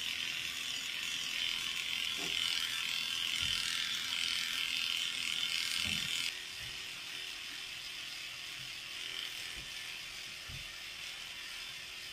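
Cordless electric dog clipper running with a steady buzz as it shaves through a Bichon Frise's long, overgrown coat; about six seconds in the sound suddenly drops quieter and stays steady.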